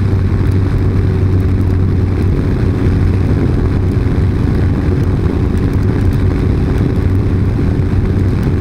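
Touring motorcycle engine running at a steady cruise, with steady wind and road rush over the bike-mounted microphone.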